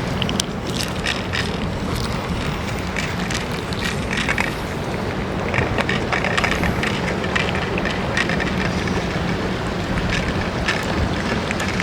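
Strong wind buffeting the microphone in a steady low rumble, with scattered short crackles over it.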